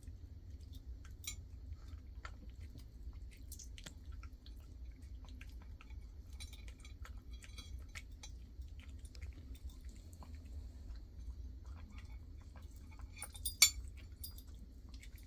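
A pet chewing rotisserie chicken: faint, scattered clicks and smacks of eating, with one sharper click about thirteen seconds in.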